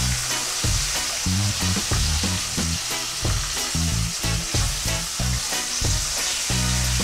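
Floured fish slices frying in hot oil with a steady sizzle. Background music with a regular beat plays underneath.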